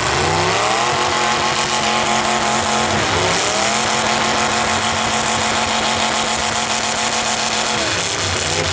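Demolition derby car's engine revving hard and held at high revs, easing off and climbing again about three seconds in, then dropping near the end.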